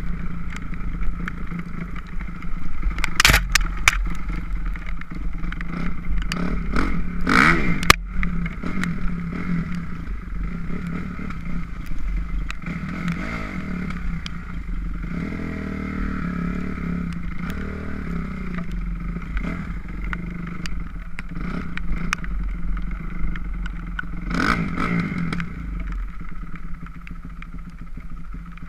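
2006 Kawasaki KX250F's single-cylinder four-stroke engine running steadily, with a few sharp clatters about 3, 7 and 24 seconds in.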